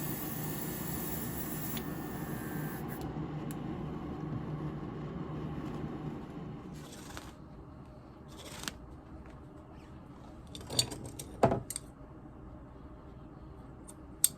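A steady mechanical hum with hiss that fades out about six seconds in, followed by a few scattered clicks and knocks of things being handled on a workbench.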